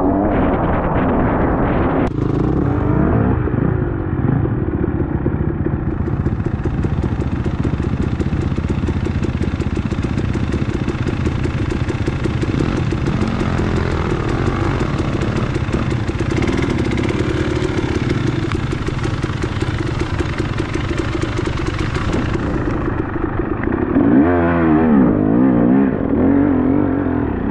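Dual-sport motorcycle engine running while riding a trail, its revs rising and falling, with a steady hiss through the middle stretch.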